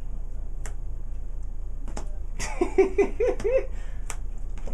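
A few sharp clicks of trading cards being set down on the playmats, with a brief burst of voice just past the middle and a steady low hum underneath.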